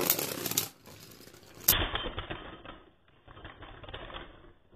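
Two Beyblade Burst spinning tops, Orb Egis and Vise Leopard, clashing against each other in a plastic stadium: a fast rattle of clacks, with one loud hit a little under two seconds in.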